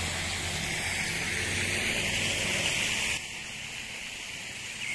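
Steady outdoor background hiss with a low hum underneath, dropping abruptly in level about three seconds in.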